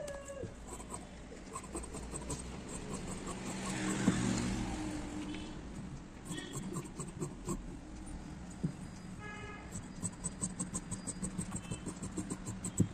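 Large tailoring shears cutting through cloth, with a quick run of snips, several a second, in the last few seconds. A passing vehicle swells and fades, loudest about four seconds in.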